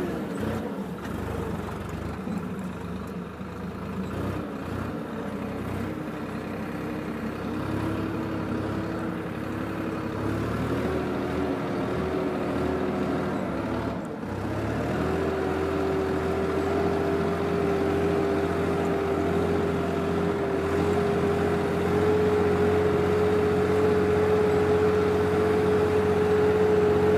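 Swaraj 963 FE tractor's diesel engine running steadily under load as it pulls a mouldboard plough through the soil. The engine note changes about halfway through, then holds steady and a little louder.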